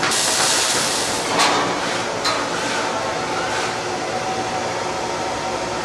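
Welding arc crackling on steel plate, cutting off about a second and a half in. A couple of sharp metal clicks follow as the welded steel piece is handled, over a steady background hum.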